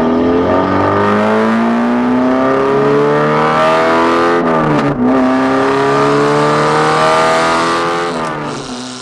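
Car engine and exhaust fitted with an exhaust cutout, accelerating hard. The engine note climbs steadily, drops sharply at a gear change about five seconds in, then climbs again before easing off near the end.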